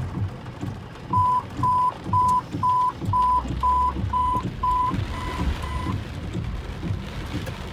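Fire dispatch alert tone over a scanner radio feed: ten short beeps at one pitch, about two a second, the last two fainter, alerting units before a dispatch call.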